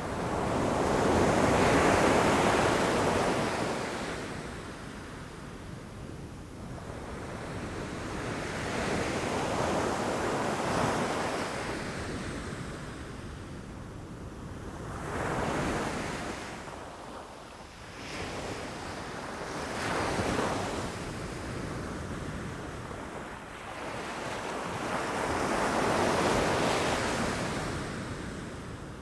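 Ocean waves crashing against rocks, a rushing surge that swells and fades about five times, the biggest near the start.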